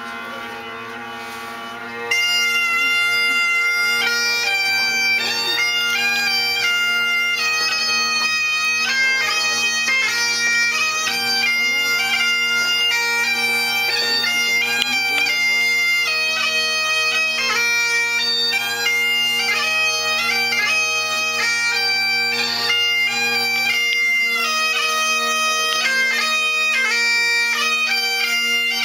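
Bagpipes playing a bridal march. The drones sound steadily and the chanter melody comes in about two seconds in. The lowest drone note drops out near the end.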